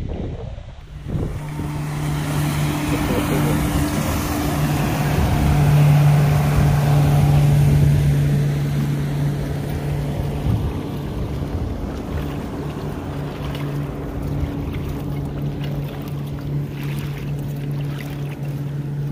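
A motorboat engine running with a steady low hum over wind and water noise. It grows louder to a peak about six to eight seconds in, then holds steady.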